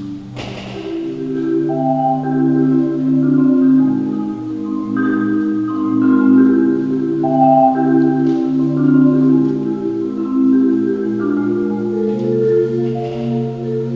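Marimba music: layered mallet lines of held and rolled notes at several pitches at once, with a sharp percussive hit just after the start.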